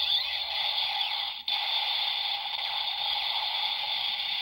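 DX Ghost Driver toy belt playing its electronic transformation sound effect through its small built-in speaker while its eye lights change from red to blue: a steady, hissing, noise-like electronic effect, broken by a brief gap about a second and a half in.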